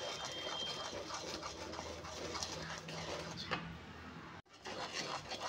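Wooden spatula stirring and scraping in a kadai as gram flour is sprinkled into hot sugar syrup, a steady scratchy rasp. The sound drops out briefly about four and a half seconds in.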